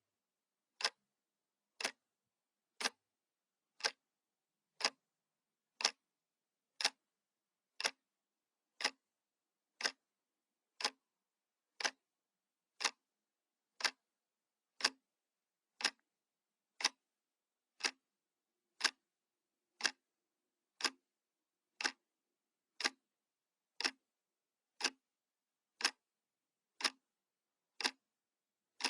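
Analog clock ticking steadily, one sharp tick each second, with dead silence between ticks.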